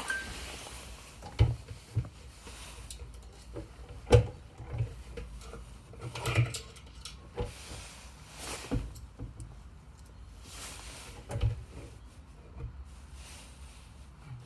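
Intermittent knocks and clatter from handling a concealed hinge, screws and tools on a wooden cabinet door, with a few sharp knocks several seconds apart and light rustling between them.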